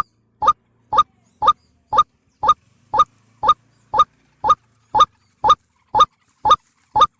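White-breasted waterhen (ruak-ruak) call played as a bird-trapping lure: one short note repeated evenly, about twice a second.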